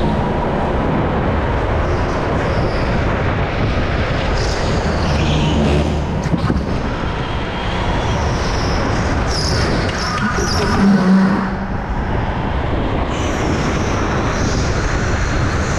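Go-kart driving at speed, heard from onboard: a steady, loud mix of motor and track noise, with a brief louder surge about eleven seconds in.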